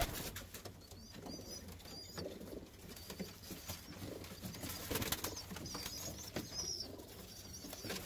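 Young Birmingham roller pigeons in a wooden loft cooing softly, with wing flaps and many short taps and scuffles from the birds on the perches.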